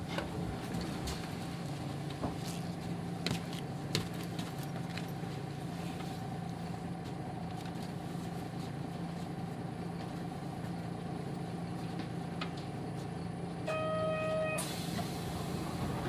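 Nissan Diesel KK-RM250GAN bus's diesel engine idling steadily, heard from inside the bus, with a few light clicks. Near the end a short electronic beep sounds, then a burst of air hiss.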